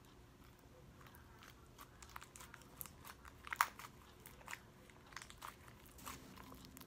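Hard homemade slime being kneaded and squeezed by hand as body lotion is worked in to soften it, giving faint scattered clicks and crackles, with one louder pop a little past halfway.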